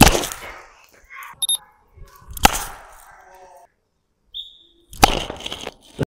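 Three sharp cracks about two and a half seconds apart, each with a short ringing tail, and a brief high squeak just before the last.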